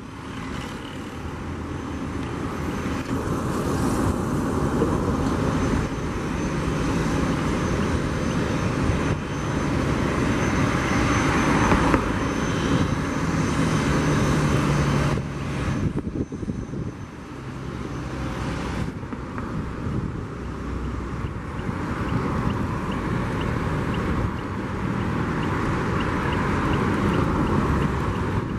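Jet engines of a taxiing Boeing 777 freighter heard across the airport, a steady rumble and hiss. The sound changes abruptly about halfway through.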